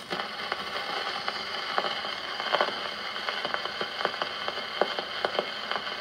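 Surface noise of a shellac 78 rpm record on an acoustic gramophone: a steady hiss with frequent irregular clicks and crackles as the needle runs through the lead-in groove.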